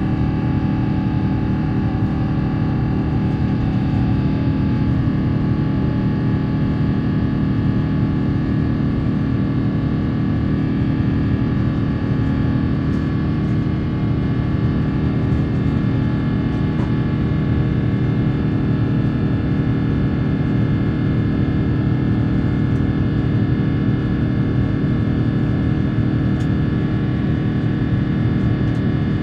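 Airbus A350-900's Rolls-Royce Trent XWB turbofan engines heard inside the cabin during the climb at reduced climb thrust: a steady low rumble with several constant fan tones over it.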